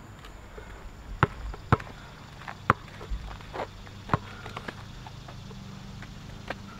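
Basketball dribbled on asphalt: a string of sharp bounces at an uneven pace, with lighter taps in between.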